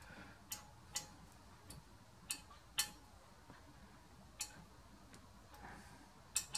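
Allen key clicking in socket-head cap screws as they are turned into the cylinder mount of a model steam engine: a string of sharp, irregularly spaced metallic ticks. The screws are running in freely.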